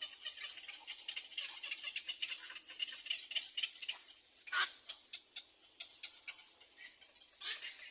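Dense, fine rustling and scratching in a bird's nest, with louder crackling bursts about halfway through and again near the end.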